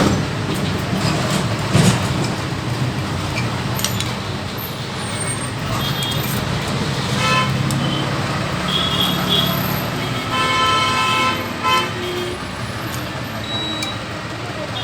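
Road traffic running steadily, with a vehicle horn sounding briefly about seven seconds in and again, longer, from about ten to eleven and a half seconds.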